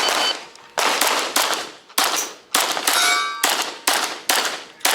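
A rapid string of about nine pistol shots, roughly two a second, from a Glock 20 in 10mm. A brief metallic ring follows the shot about three seconds in.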